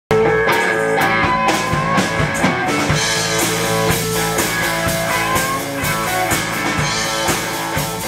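Live rock band playing: electric guitars over bass and drum kit, with a steady beat. The music starts abruptly at the very start, mid-song.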